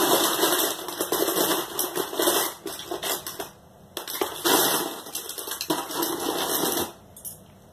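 Loose plastic Snap Circuits pieces rattling and clicking against each other as someone rummages through them for snap wires. It comes in two spells, with a short pause about three and a half seconds in.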